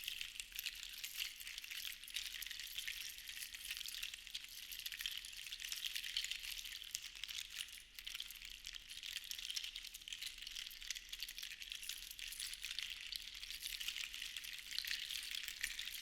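Sea shells rattling together in a dense, continuous stream of fine clicks that swells and eases in slow waves, with a brief lull about halfway through.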